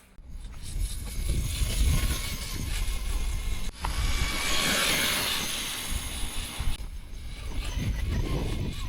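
Electric remote-control car on a speed run: a rushing, wheels-and-motor sound that swells to its loudest about four to five seconds in and then fades, over a steady low rumble.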